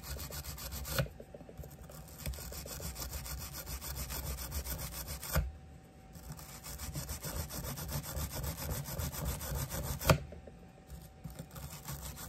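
Brass wire brush scrubbing back and forth over the brass bolster of a Schrade LB-5 folding knife, in quick rough strokes with a few short pauses. There is one sharp click about ten seconds in.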